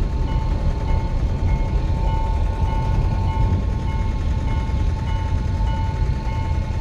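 Level crossing warning alarm sounding a repeating electronic tone while the barrier is down, signalling that a train is approaching, over a steady low rumble.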